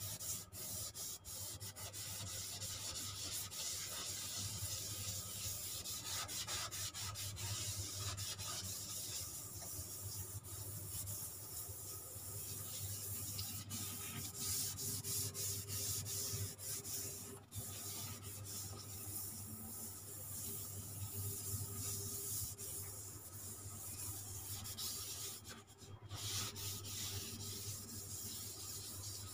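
Coarse green scouring pad scrubbing a smooth white kitchen countertop, a continuous scratchy rubbing with a couple of brief pauses. It is working off a stubborn stain loosened by a degreaser spray, with light pressure.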